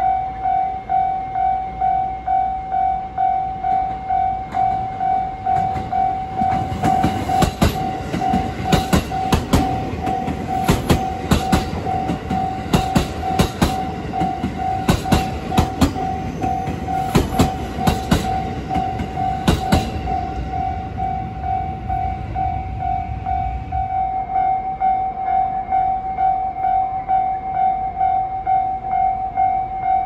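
Japanese level-crossing warning bell ringing steadily at about two strikes a second. From about six seconds in, a JR 281 series Haruka limited express runs past close by, its wheels clacking sharply over the rail joints at the crossing. The train's running noise fades out by about 24 seconds.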